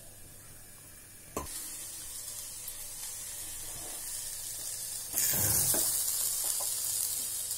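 Diced snake gourd sizzling in oil in a stainless steel pot on a gas stove. About a second and a half in, a clink as the glass lid comes off, and the sizzle grows louder. From about five seconds in, a spatula stirs the pieces, with scraping knocks and a louder sizzle.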